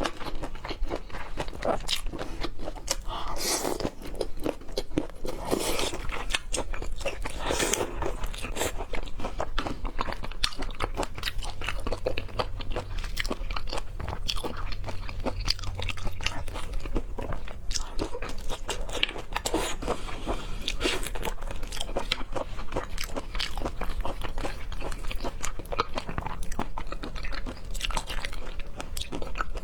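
Close-up chewing and biting of food, with many quick, irregular crunching and smacking sounds.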